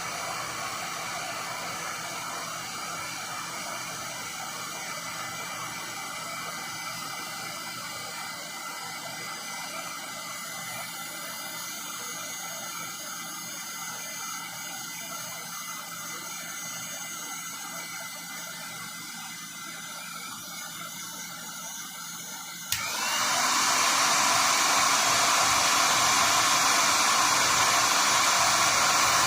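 SEEKONE 1800 W heat gun blowing steadily on its low setting. About 23 seconds in there is a click and it runs much louder, switched up to a higher setting.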